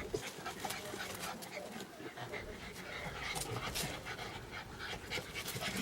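Exotic bully dog panting, with quick, irregular breaths.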